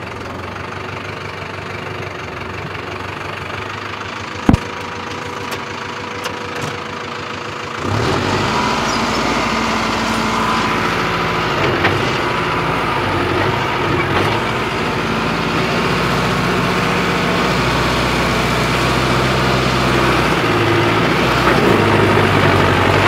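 Mahindra Arjun Novo 605 DI tractor's turbocharged diesel engine, steady at first with a single knock about four and a half seconds in. About eight seconds in it revs up and runs louder under heavy load, pulling a cultivator through hard ground, its pitch rising and falling and the sound growing louder toward the end.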